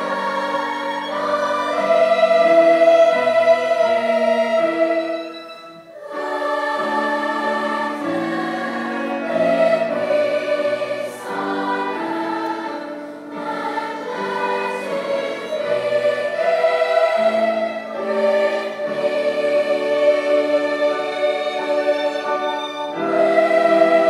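Large choir singing in harmony, holding sustained chords, with a short break in the sound about six seconds in before the singing resumes.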